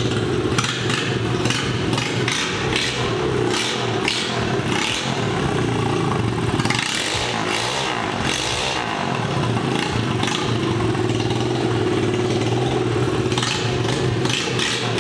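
Honda 125 air-cooled single-cylinder motorcycle engine running steadily on a newly fitted pod air filter, blipped a few times around the middle. The owner finds the sound and revs quite stable with the pod filter.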